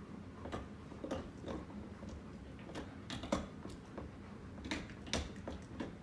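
Ceiling fan running, with sharp ticking clicks about twice a second, unevenly spaced, over a low steady rumble.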